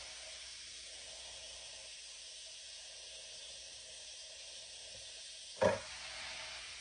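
Chicken pieces and onion sizzling steadily in hot olive oil in a skillet. A brief sharp sound cuts in about five and a half seconds in.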